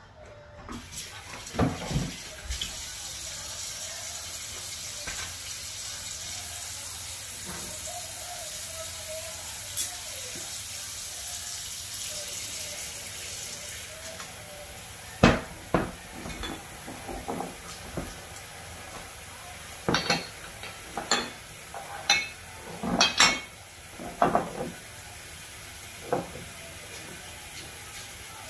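Kitchen handling sounds on a gas hob: a steady hiss through the first half, then a run of sharp clinks and knocks as a glass cooking-oil bottle and a frying pan are handled on the stove while oil is poured into the pan.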